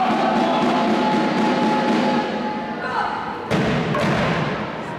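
Echoing murmur of many voices in a large gymnasium, then a single loud thump with a reverberant tail about three and a half seconds in.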